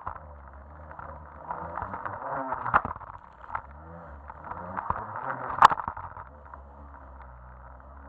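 Jet ski engine running, its pitch rising and falling as it revs, with two sharp knocks about three and five and a half seconds in.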